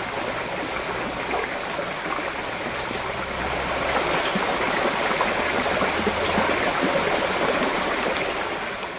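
Shallow stream running over a stony bed, a steady babbling of water that grows a little louder about halfway through.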